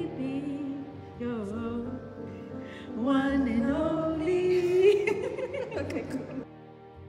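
Background music: a solo voice sings a wavering, climbing melody over held accompaniment, which gives way to steady instrumental chords near the end.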